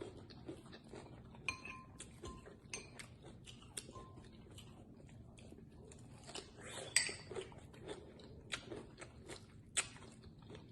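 Close-up eating sounds: chewing and biting into deep-fried frog legs with a crunchy hot-Cheeto coating, heard as many small, irregular crunches and mouth clicks.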